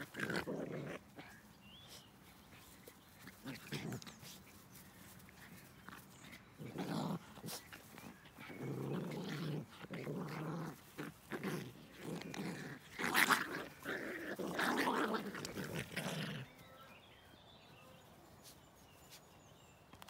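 Two puppies play-fighting, growling and snarling in irregular bursts, with one louder, sharper burst about two-thirds of the way through. The growling stops about three-quarters of the way through.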